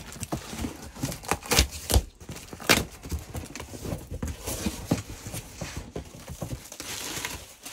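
A cardboard box wrapped in plastic film and packing tape being handled and opened: a run of irregular knocks and taps of cardboard, with crinkling plastic and a stretch of steady hiss from about six seconds in.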